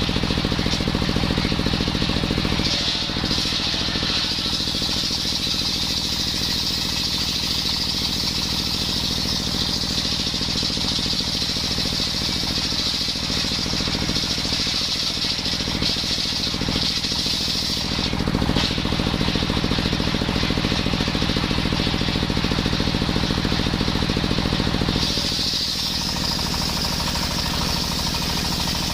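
Engine-driven circular saw cutting coconut wood: a small petrol engine running steadily under a high whine from the blade in the cut. The sound shifts a few times as the cut load changes, and about 25 s in the engine settles to a lower, lighter note.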